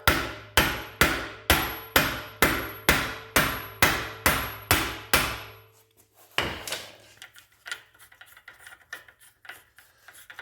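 Sledgehammer striking a protector nut threaded onto the end of a BMW E9x xDrive front axle shaft, driving the seized axle back through the wheel hub: about a dozen steady blows, two a second, with a metallic ring between them. After a short pause comes one more blow, then faint clatter.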